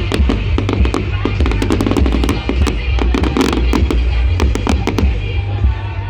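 Fireworks crackling and banging in quick succession, many sharp reports one after another, over loud music with a heavy, pulsing bass.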